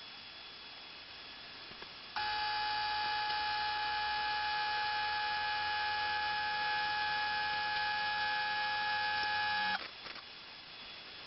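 HVLP spray gun spraying primer, triggered on for about eight seconds: a steady rush of air with a whistling tone, starting and stopping abruptly.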